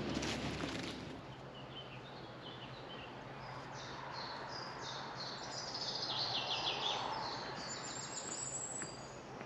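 Songbird singing rapid runs of short, high notes, strongest from about four seconds in until near the end, over steady outdoor background noise.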